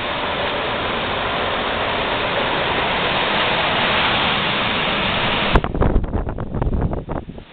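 Denso 18,000 BTU portable air conditioner running, its fan blowing with a steady noise. About five and a half seconds in, a sharp click cuts the noise off, followed by a run of low thumps and rumbles lasting under two seconds.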